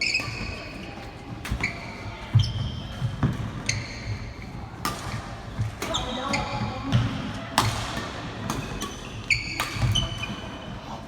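Rally sounds on an indoor court: irregular sharp hits and short high sneaker squeaks on the floor, ringing in a large hall.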